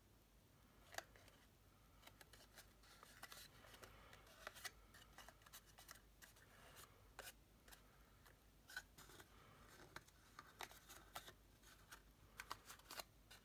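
Faint rustling and scattered light ticks of stiff cardstock being handled, squeezed and pressed together by hand as a freshly glued seam is held.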